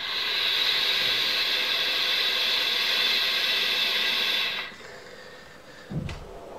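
Kanger Subtank Mini atomizer on a Subox Mini mod fired at 30 W on a 0.5-ohm coil head with the airflow fully open: a steady hiss of air drawn through it over the firing coil for about four and a half seconds, then stopping. About six seconds in comes a low breathy puff as the vapour is blown out.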